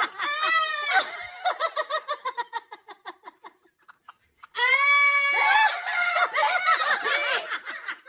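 Hearty laughter in two bouts, each opening with a high-pitched cry and breaking into a quick run of short laughs that fades out, with a brief pause between them.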